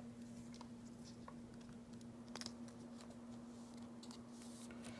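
Quiet room tone with a steady low hum, and a few faint small clicks and light rustles of handling, one clearer click about halfway through.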